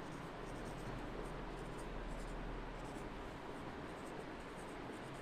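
Marker pen writing digits on a whiteboard: a run of faint, short strokes of the felt tip against the board.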